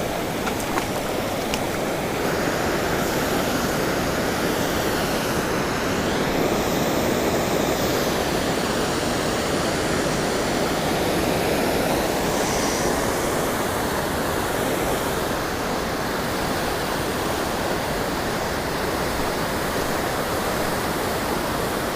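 Steady rushing of a waterfall pouring into a creek pool, with a few faint ticks in the first couple of seconds.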